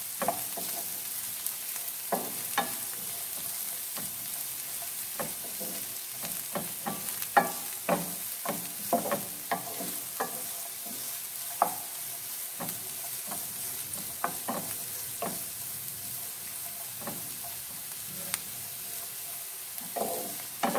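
Chopped onions frying in butter in a nonstick pan, a steady sizzle, while a wooden spatula stirs them, with irregular scrapes and light knocks against the pan. The onions are being fried until they turn translucent.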